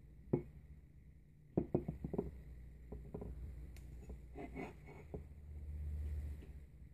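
Handling noise from a handheld camera: scattered light taps and clicks, bunched in two quick clusters about one and a half and four and a half seconds in, over a low steady hum.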